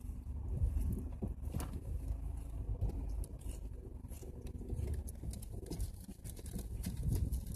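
Toyota Tacoma pickup creeping slowly downhill on snow: a low engine rumble with the tires crunching and crackling through the snow.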